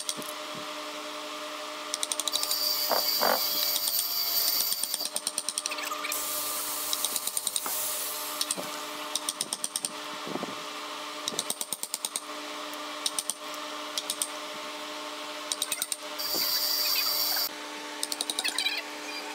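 Wooden mallet striking a steel chisel into a hardwood block in quick runs of sharp taps, over a steady hum. A louder, high-pitched machine whine comes in twice, from about two to five seconds in and briefly near the end.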